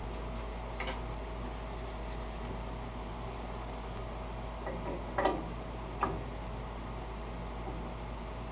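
Abrasive cloth rubbing on a treadmill motor shaft in a few brief strokes, cleaning corrosion off it, the loudest about five seconds in, over a faint steady hum.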